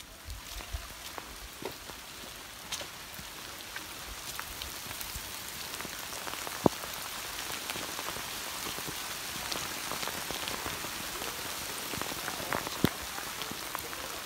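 Steady rain falling through the woods, a wash of noise dotted with scattered sharp taps, the loudest about halfway through and again near the end.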